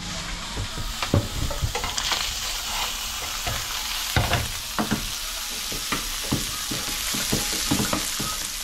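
Rainbow trout fillets sizzling steadily in a nonstick frying pan, with scattered clicks and taps from metal tongs turning them in the pan.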